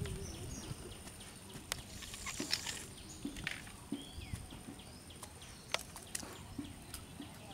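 Scattered sharp clicks and light rustling as a freshly caught fish is handled and unhooked, with a few faint high chirps in the background.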